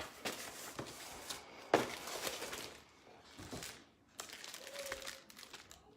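Packaging crinkling and rustling as items are handled and pulled out of an order box, with a sharper crackle about a second and a half in.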